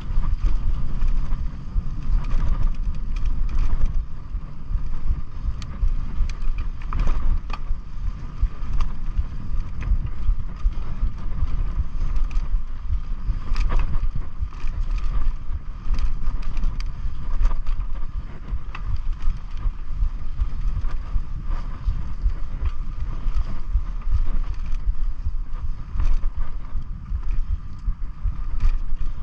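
Mountain bike ridden along a dirt trail: steady wind buffeting on the camera microphone, with frequent small clicks and rattles from the bike over the ground.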